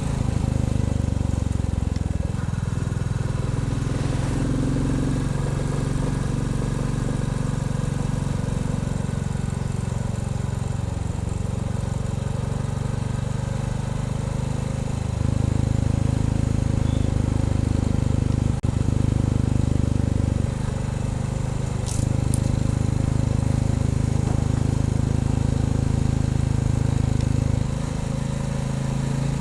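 Royal Enfield Bullet 350's single-cylinder engine running on the move, its low exhaust beat getting louder and softer in steps as the throttle opens and eases: louder about halfway through, dropping back briefly, then up again and easing near the end.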